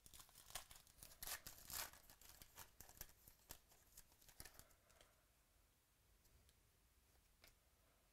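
Foil trading-card pack wrapper being torn open and crinkled as the cards are slid out, faint and crackly, stopping about five seconds in; after that, near silence with a couple of small clicks.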